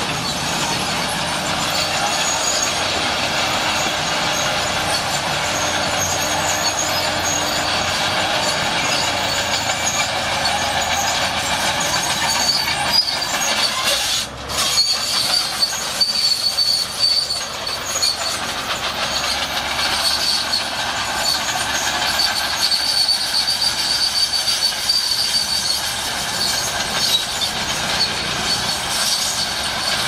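Shantui SD16 crawler bulldozer working: its diesel engine runs steadily while the steel tracks clank and squeal as it pushes soil and rocks. A high squeal from the tracks grows stronger in the second half.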